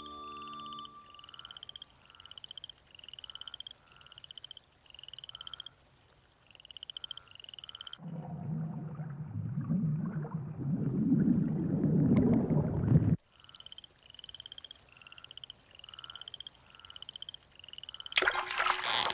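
Frogs croaking at a swamp: a short, rising, pulsed call repeated about every two-thirds of a second. The calls stop for about five seconds while a rumbling rush of noise builds and cuts off suddenly, then they resume. A sudden loud burst of noise comes near the end.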